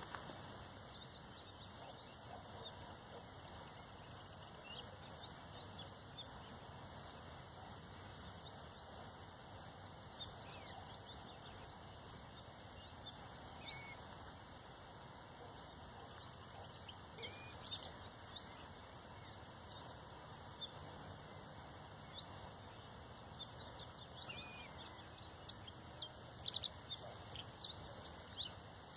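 Male common reed bunting singing: short phrases of a few high chirps, repeated every few seconds over a faint steady hiss.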